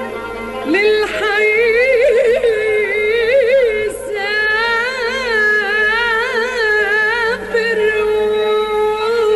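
A woman singing an ornamented Arabic melody in an old recording with instrumental backing: long held notes broken by quick wavering turns, with short breaths near the start and about four seconds in.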